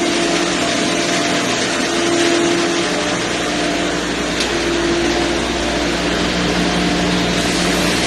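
Loud, steady din of running machinery in a ship's engine room, an even roar with a constant low hum.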